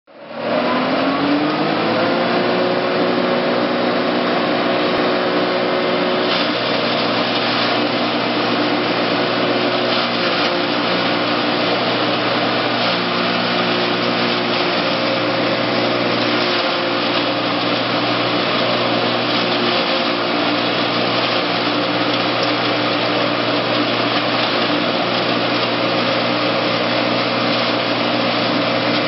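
MS-360 forage and grain chopper, a hammer-and-knife mill driven by a 3 kW single-phase electric motor, starting up with its pitch rising over the first couple of seconds and then running at a steady speed. From about six seconds in, green fodder fed into the hopper is being chopped, adding a coarse rushing noise over the machine's hum.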